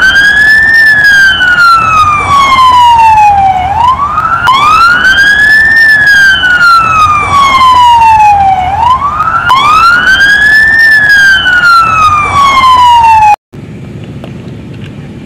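Ambulance siren wailing in three slow cycles, each a quick rise in pitch followed by a long, slow fall, cutting off suddenly near the end.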